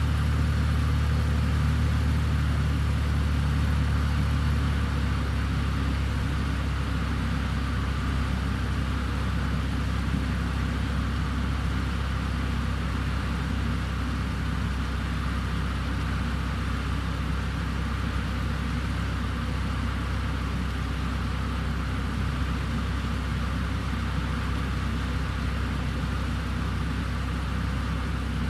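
1996 Ford Falcon's engine idling steadily. It is a little louder for the first few seconds, then settles to an even idle.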